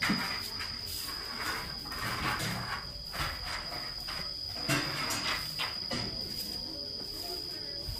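A grass broom swishing in strokes over a concrete floor, under a steady high-pitched insect trill like a cricket's.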